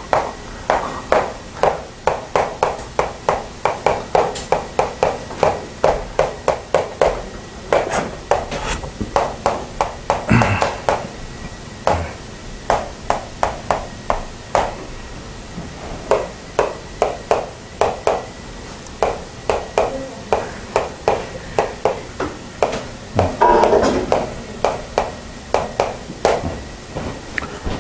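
A rapid, steady run of light sharp taps, about three or four a second, with a couple of short louder rustling or knocking moments, one about ten seconds in and one about twenty-three seconds in.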